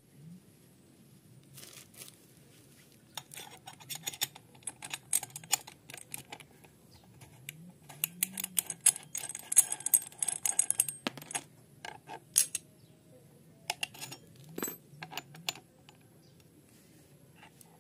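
Small metal parts clinking and clicking as the steel flange and washers are handled and fitted onto the gearhead spindle of a Shibaura brush cutter: quick irregular clusters of clinks through the middle, a few more near the end.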